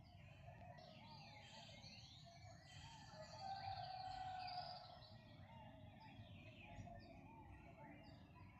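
Many birds chirping and twittering together in a faint morning chorus, with quick high chirps and sweeping notes throughout. Underneath runs a lower repeated warbling call that swells loudest near the middle, over a faint low rumble.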